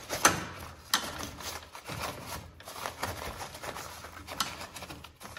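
Irregular clicks, rattles and paper rustling as the end of a paper towel roll is tucked under the feed bar of a motion-activated towel dispenser, with the sharpest clicks in the first second.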